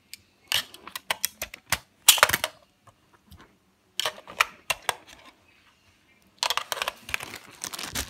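AA batteries being pushed into the spring contacts of a plastic toy remote's battery compartment, with bursts of sharp clicks and plastic clatter, loudest about two seconds in and again near the end.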